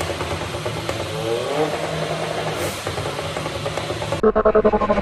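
VW Up TSI's turbocharged 1.0 three-cylinder engine, on a Stage 2 remap, pulling under full throttle in fifth gear, with a steady engine note. About four seconds in, the sound changes abruptly to a rapid pulsing engine note.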